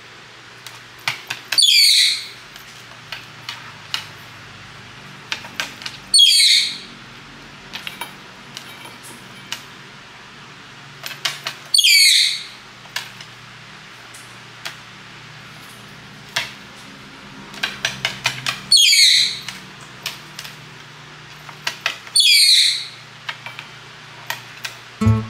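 Red-breasted parakeet screaming: five loud, harsh calls several seconds apart, each under a second long, with light clicks between them.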